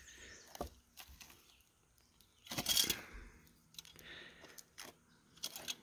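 Metal fire tongs clicking and scraping through the cold ashes and charred wood of a burnt-out campfire: a few short clicks, with one louder scrape a little under halfway through.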